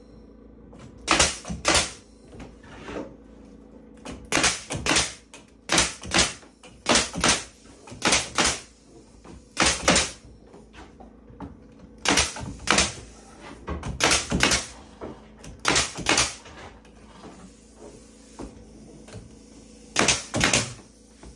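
DeWalt battery-powered cordless nailer driving nails into cedar countertop boards: about ten shots, each a quick double snap, spaced one to two seconds apart.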